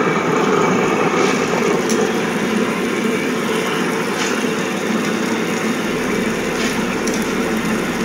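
Preethi Iconic table-top wet grinder running, its motor spinning the steel drum against the stone rollers as they grind soaked urad dal into idli batter. A steady mechanical whir with a few faint clicks.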